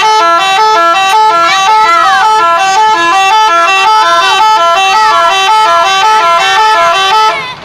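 Telolet horn of a Dedy Jaya bus: a multi-tone musical horn playing a quick repeating tune of stepped notes. It is loud and continuous, and cuts off near the end.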